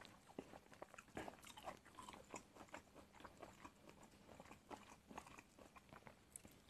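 Faint close-up chewing of a man eating sticky rice with stir-fried angled luffa and egg by hand, with scattered soft mouth clicks.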